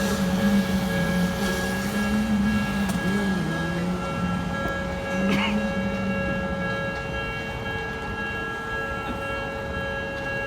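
Odakyu Line electric train passing over a level crossing, its motor hum wavering in pitch and fading away about seven seconds in. Through it runs a set of steady high ringing tones from the crossing's warning alarm.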